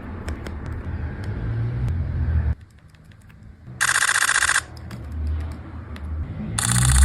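Nikon Z9's new simulated shutter sound from its firmware update, firing in two short high-speed bursts of rapid clicks a few seconds apart, over a low rumble.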